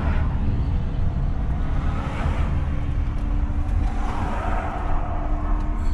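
A car's low, steady rumble heard from inside the cabin, with a faint steady hum through most of it.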